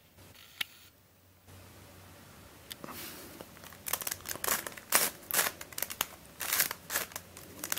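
A Dayan + MF8 standard pentahedron, a plastic twisty puzzle, being scrambled by hand. From about three seconds in its layers turn with quick, irregular plastic clicks and clacks. It turns really nicely.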